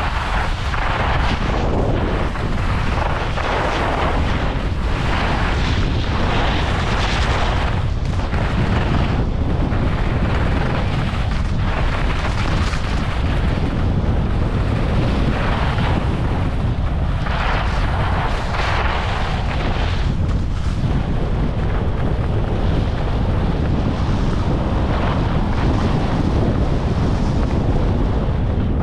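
Skis carving down a snowy piste, a swelling hiss of edges scraping the snow on each turn, every second or two, over a steady low rumble of wind buffeting a GoPro HERO11's microphone.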